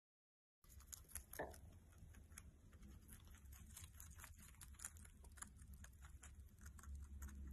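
A rabbit chewing a leafy green: faint, quick crunches and clicks as it bites and munches the leaf, starting about half a second in after dead silence, over a low hum.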